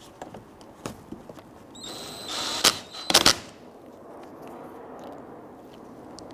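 Bauer 20V cordless driver running briefly with a steady whine as it drives a screw into a plastic splash guard, followed by a few loud, sharp clicks about three seconds in.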